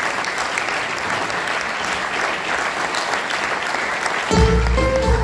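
Audience applauding steadily. About four seconds in, the band starts playing over the clapping, with sustained notes and a heavy bass.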